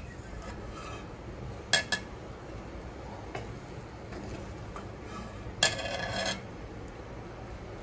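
A wooden spatula working noodles out of a stainless steel karahi: two quick knocks against the pan just under two seconds in, and a longer scrape across the metal a little past five and a half seconds.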